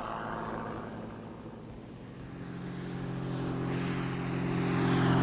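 Piston engine and propeller of a low-flying crop-dusting plane, a steady drone, fainter early on and growing louder from about two seconds in as the plane approaches.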